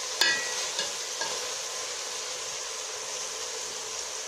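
Metal ladle clinking against an aluminium cooking pot: one sharp ringing clink and two lighter ones in the first second and a half, then the ladle is left still. Under it, a steady sizzling hiss of bitter gourd and meat curry cooking in the pot.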